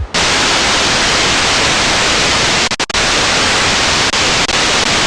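Loud, steady static hiss, cutting out briefly twice about three seconds in.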